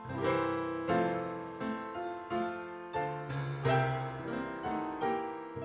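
Background piano music: struck notes that ring and fade, in a gentle, steady rhythm.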